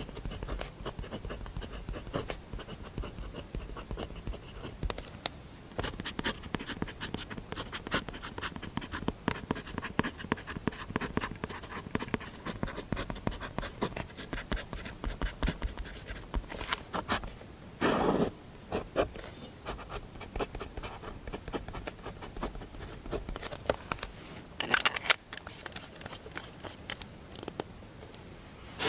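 Fountain pen nib scratching across paper in many short writing strokes, with a brief louder rustle about two-thirds of the way through.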